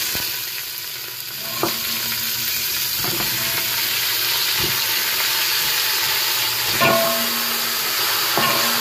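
Hot oil sizzling in an aluminium pressure cooker as pieces of beef trotter are added by hand on top of fried onions and ginger-garlic. The sizzle grows stronger after about a second and a half, with a few short knocks as pieces go in.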